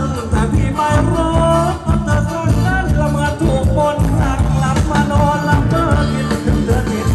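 Live band playing upbeat Thai ramwong dance music with a singer over a steady, driving drum beat.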